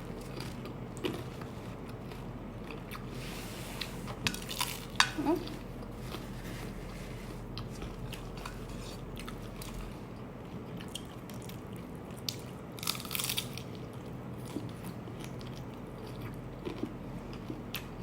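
Crunching bites and chewing of a crispy hard taco shell, in a few scattered bursts, loudest a little over four seconds in and again around thirteen seconds, over a low steady hum.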